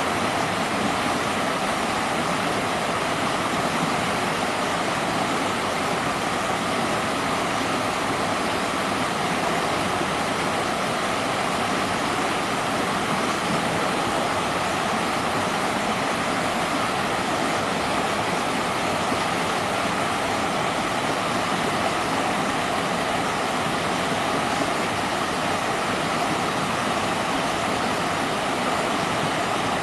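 Doncaster River's flowing water making a steady, unbroken rush.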